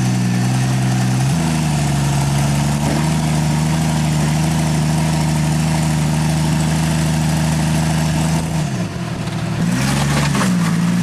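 Rock crawler's engine under throttle on a rock obstacle: the revs step up about a second in and hold steady, fall away briefly near the end, then come back up.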